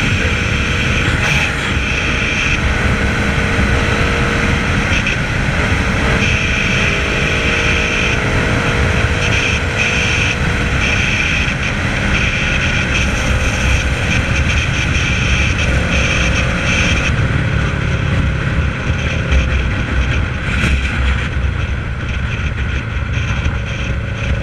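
Kawasaki ER-6n's 649 cc parallel-twin engine running at high highway speed, with heavy wind rush over the camera microphone. The engine note drifts slightly as the bike eases off from about 160 to about 130 km/h.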